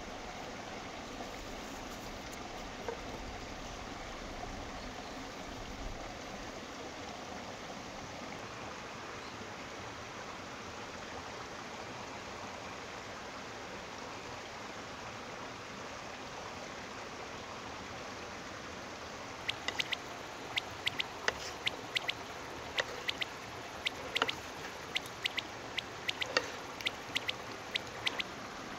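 Steady rush of a running stream in the background. From about two-thirds of the way in, a run of quick, sharp wet clicks and taps as tomato salad is tossed with a wooden spatula in a wooden bowl.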